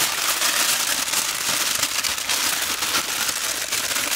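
Aluminium foil crinkling and crackling without a break as hands fold and press it around a large joint of meat.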